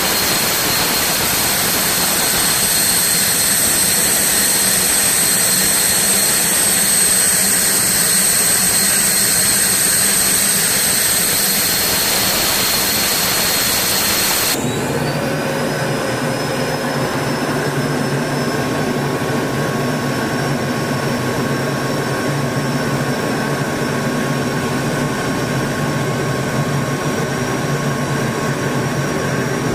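T-38 Talon twin J85 turbojet engines running, heard from the cockpit: a loud steady jet whine. About halfway through the sound changes abruptly to a lower, fuller engine noise, with a high tone that rises briefly and then holds.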